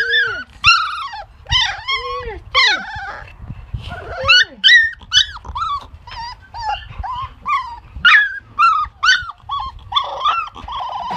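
Young puppy crying: a long run of short, high, arching whines and yelps, about two a second, ending in a longer, lower cry.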